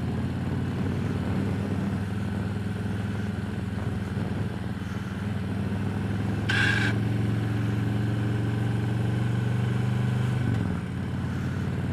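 Harley-Davidson Road Glide's V-twin engine running steadily while riding. The pitch drops about ten seconds in as the throttle eases off. A brief hiss comes about halfway through.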